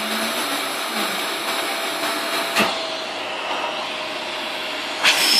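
Household vacuum cleaner running with a steady whirring hum. Near the end there is a sudden louder rush of air noise.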